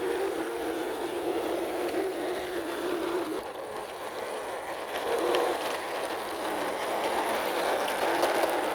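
A plastic toy truck loaded with toy cars rolling across the floor: a steady rolling rumble from its wheels that swells and eases.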